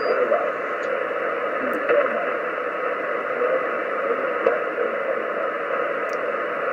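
Shortwave static from a Kenwood HF transceiver's speaker, tuned in upper sideband: a steady hiss cut off above and below the voice range, with faint, unintelligible voice fragments under it.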